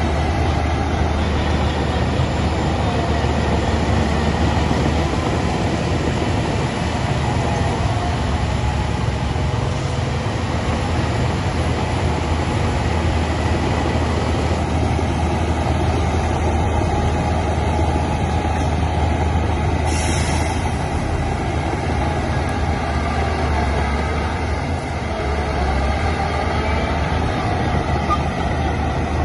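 Heavy earthmoving machinery running steadily: a low diesel engine drone with a continuous mechanical clatter. A short hiss comes about two-thirds of the way through.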